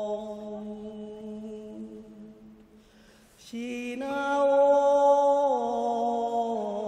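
A man's voice chanting in long, drawn-out held notes, the wordless 'heavenly language' (天語) chant of a Buddhist teacher. The first note fades away. There is a short breath about three seconds in, then a louder held note begins that steps down in pitch twice.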